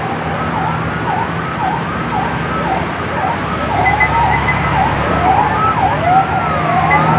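Siren-like sound effect in a logo sting: quick rising-and-falling wails, about two a second, over a steady low hum.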